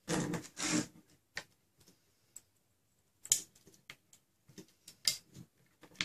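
Clear plastic blaster shell and aluminium parts clicking and clacking as they are handled and fitted together: a longer scraping clatter in the first second, then scattered sharp clicks.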